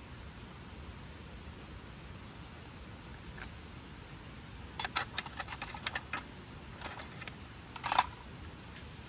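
A quick run of small sharp clicks and clinks about five seconds in, a couple more near seven seconds, and one louder knock just before eight seconds, over a steady background hiss.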